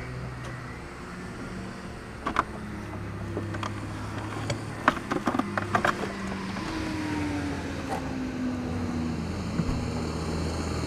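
Go-kart engines running with a steady low drone, and one slowly falling in pitch for a few seconds after the middle. Several sharp knocks and clicks in the middle as a driver climbs into the kart's seat.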